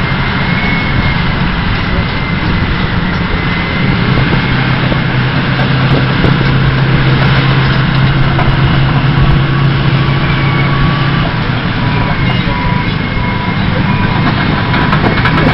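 Diesel engines of a Caterpillar D10 bulldozer and wheeled motor scrapers working hard under load while the dozer push-loads the scrapers: a loud, steady machine noise. A deeper engine note grows about four seconds in and fades out around eleven seconds, as a scraper passes close by.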